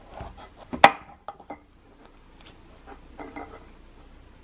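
Kitchen knife cutting through a cherimoya on a wooden cutting board: a few light clicks and one sharp knock of the blade against the board about a second in, then faint handling sounds as the halves are separated.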